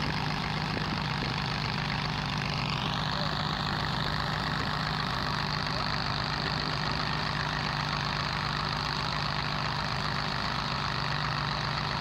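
Antique tractor engine idling steadily with a low hum. About two to three seconds in, a higher whine rises in pitch, then holds.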